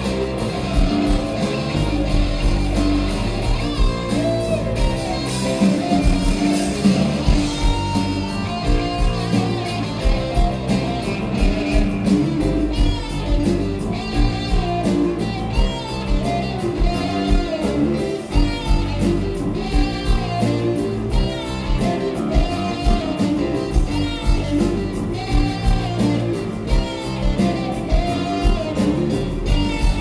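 Live blues-rock band playing over a loud stage PA: electric guitars, keyboards and drums under a steady beat, with a singer's voice on top.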